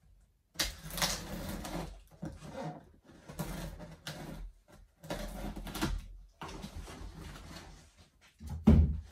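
Cardboard packaging being opened and handled: irregular rustling and scraping in bursts, with one heavy thump near the end.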